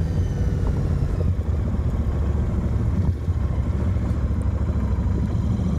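Royal Enfield Continental GT 650's parallel-twin engine running steadily as the motorcycle is ridden at low speed.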